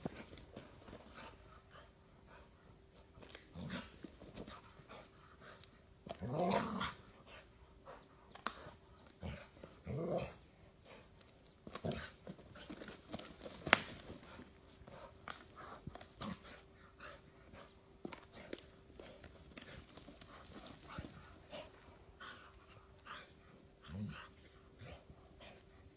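Pit bull growling in short, scattered bouts as it attacks a snake, loudest about six to seven seconds in, with a single sharp click near the middle. A faint steady hum runs underneath.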